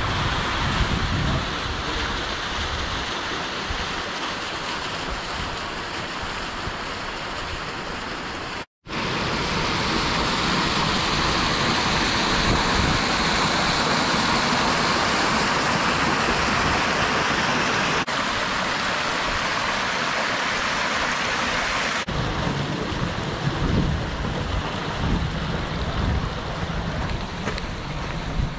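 Hot-spring-fed creek rushing and splashing over boulders: a steady rush of water that drops out briefly about a third of the way in and is loudest through the middle stretch.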